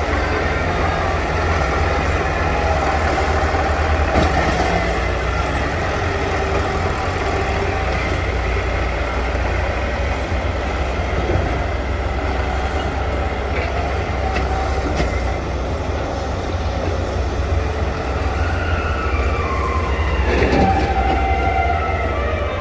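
Excavator diesel engine and hydraulics working: a steady, heavy rumble with whining tones, one of which slides down in pitch near the end.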